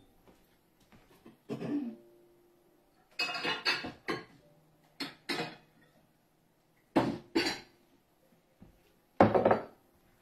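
Kitchen dishes and utensils being handled and set down on a wooden countertop: a string of separate knocks and clinks, some with a brief ring after them, with quiet gaps between.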